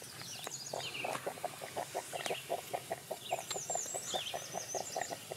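Stainless steel percolator coffee pot perking: a rapid, even gurgling pulse, about five or six a second, as the coffee bubbles up into the glass knob. Songbirds chirp high above it.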